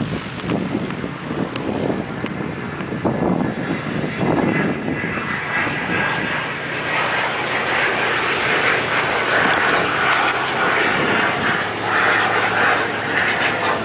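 An aircraft flying past, its engine noise building from about four seconds in, with a thin high whine that slowly falls in pitch; wind gusts on the microphone at first.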